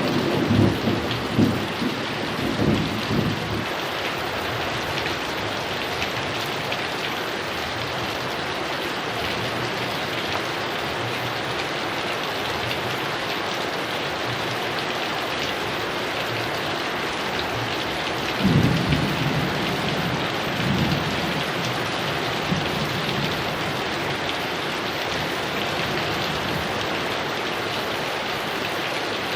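Heavy rain falling steadily, with low rolling thunder. A rumble dies away in the first few seconds, and another rolls in about two-thirds of the way through and lasts a few seconds.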